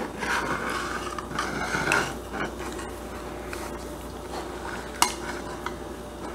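Metal serving utensil scraping and digging through cheese-topped shepherd's pie in a stainless steel pan, with one sharp clink of metal on the pan about five seconds in.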